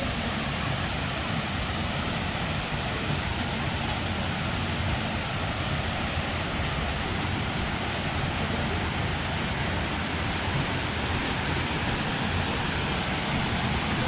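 Steady rushing of a small waterfall and the shallow stream running over rocks below it.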